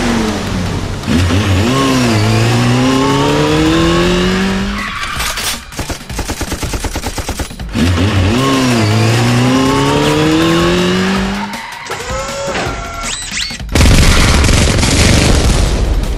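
Dubbed car sound effects: an engine revving up through its gears, pitch climbing, dropping and climbing again, twice, with a rapid pulsing rattle between the two runs. Near the end comes a high squeal, then a loud explosion blast.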